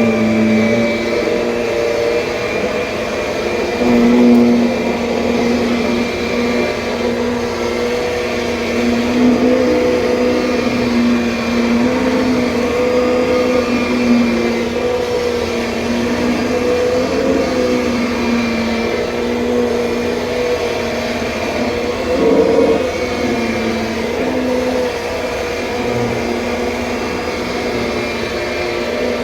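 2007 Kirby Sentria upright vacuum cleaner running steadily, its motor hum wavering slightly in pitch, with a couple of brief louder swells.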